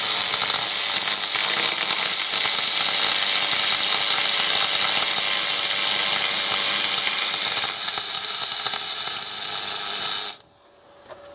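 MIG welding arc from an R-Tech MIG180 inverter welder's spool gun, running 1 mm aluminium wire into a 6 mm aluminium plate T-joint. It gives a steady, dense hiss and stops abruptly about ten seconds in.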